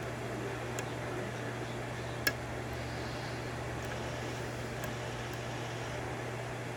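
A few small metallic clicks of a lock pick working the pins of a five-pin rim cylinder, one sharper click about two seconds in, over a steady low hum.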